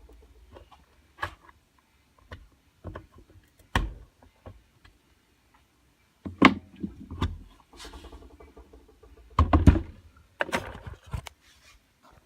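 Workshop handling noises: a chainsaw and hand tools being picked up, moved and set down, making a series of irregular knocks and clunks. The heaviest pair of clunks comes a couple of seconds before the end.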